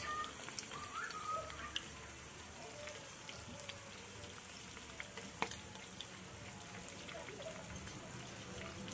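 Slices of spicy luncheon meat sizzling steadily in hot oil in a frying pan, with small scattered pops and one sharper pop about five seconds in.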